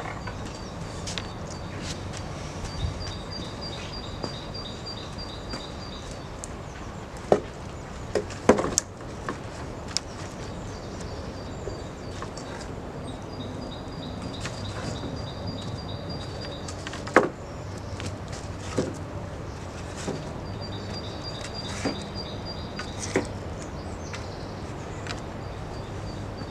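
Wooden poles knocking against each other as they are laid and shifted into place, in sharp knocks scattered irregularly, the loudest a cluster of three or four. In the background a bird sings runs of rapid repeated high notes, three times.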